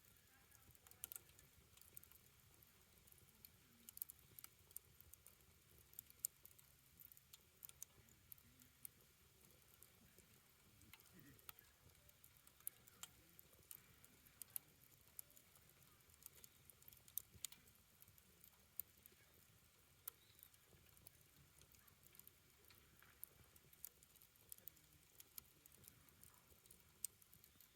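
A fire crackling quietly: irregular sharp snaps and pops, sometimes several close together, over a faint steady background.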